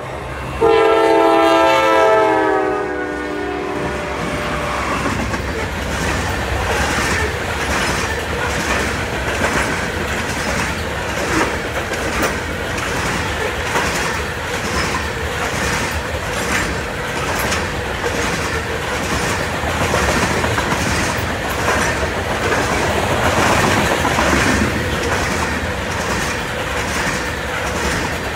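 Norfolk Southern diesel freight locomotive's air horn sounding one blast about a second in. Then the locomotives pass and a long string of loaded covered hopper cars rolls by, the wheels clicking over the rail joints in a steady rhythm.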